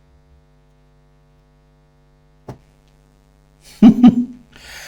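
Faint steady electrical hum, a single sharp click about halfway through, then a short vocal sound from a man near the end.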